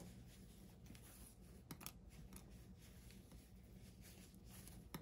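Near silence: faint room hum with a few soft clicks from fabric-wrapped cord being handled as it is wrapped.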